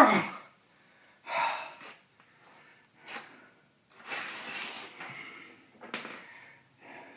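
A man groaning and breathing hard with effort as he strains on a four-way lug wrench against an overtightened lug nut: a loud groan falling in pitch at the start, then several heavy puffs of breath. A short sharp knock comes about six seconds in.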